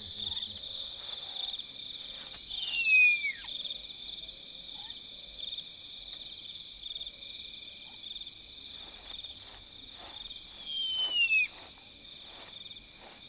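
Crickets trilling steadily in a night chorus, a fast pulsing high chirr. Twice a loud whistled call cuts through, falling sharply in pitch: once about three seconds in and again near eleven seconds.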